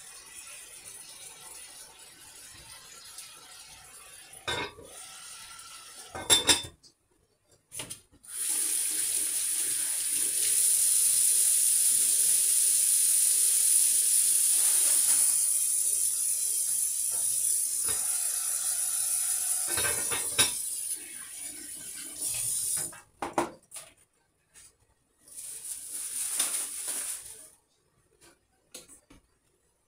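Kitchen tap running into a stainless steel sink while something is rinsed under it, for about twelve seconds, then again briefly near the end. Clinks and knocks of dishes come before and between the runs of water.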